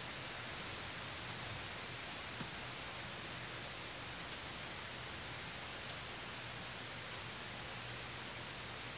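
Steady rain falling on trees and ground, an even hiss with no thunder.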